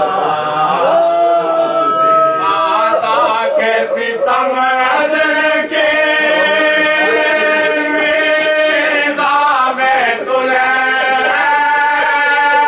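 Male voices chanting a marsiya, a Shia elegy for Imam Husain, together in long drawn-out notes that are held for several seconds and shift slowly in pitch between phrases.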